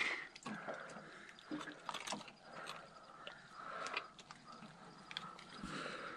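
Scattered soft clicks, knocks and rustles of a catfish being handled and hung on a digital hanging scale, over a faint steady hiss.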